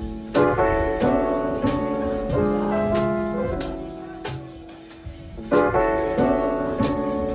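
Instrumental music led by piano chords, struck in short phrases that die away and then start again.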